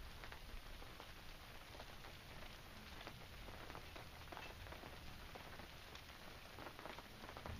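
Rain falling, faint, with a patter of many small scattered drops.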